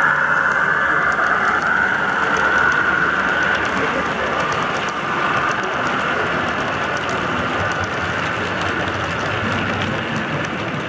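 Model freight train running past on a layout. The locomotive's whine fades over the first few seconds, then the wagons roll by with a steady rumble and rapid faint clicking of wheels over rail joints.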